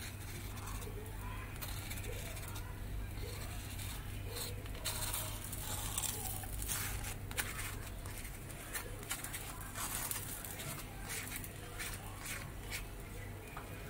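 Sandwich toasting on a flat tawa with a faint sizzle, while a table knife scrapes and taps against the griddle as it presses the sandwich. The knife sounds bunch up from about five to ten seconds in, over a steady low hum.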